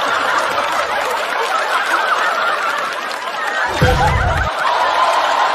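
Studio audience laughing after a punchline, with a brief low thud about four seconds in.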